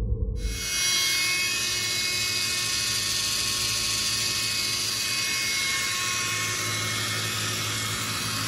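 Small electric motor of a HexBug BattleBots toy robot's spinning weapon, running at a steady speed with an even, high-pitched whine.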